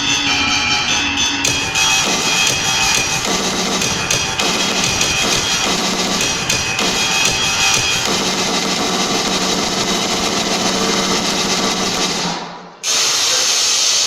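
Music with drums, faded out about twelve and a half seconds in, followed by an abrupt cut to a different busy sound just before the end.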